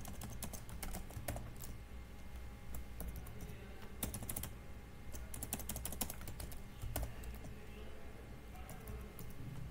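Computer keyboard being typed on: irregular runs of key clicks with short pauses between them.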